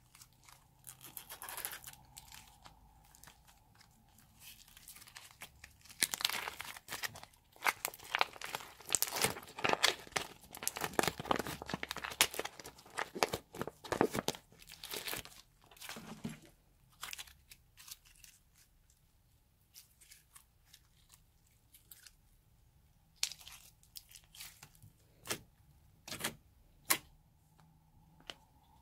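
Glossy slime being squeezed and pulled out of a plastic zippered pouch: crinkling plastic mixed with sticky crackling and popping of the slime. The crackling is dense for about ten seconds in the middle, then thins to scattered single pops.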